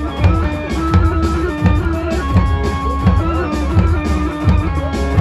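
Eastern Anatolian halay dance music: a steady heavy drum beat about every 0.7 seconds under long held melody notes.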